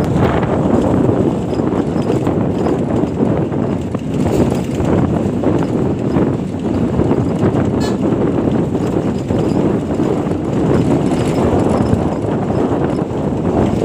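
Steady rumble and rattle of a vehicle driving over a rough road surface, with no breaks or single loud events.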